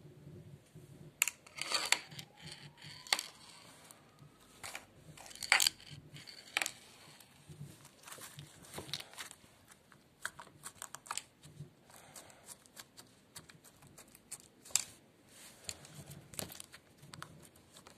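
Glitter slime with beads in it being squeezed and pulled by hand, giving irregular sticky clicks and pops with faint crackling between them.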